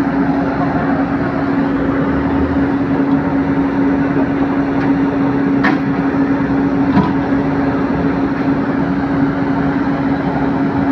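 Diesel engine of heavy machinery running steadily with a constant hum, with two light clicks in the middle.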